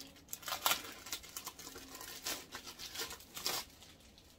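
Thin clear plastic bag crinkling and rustling in a series of irregular bursts as it is pulled open and handled.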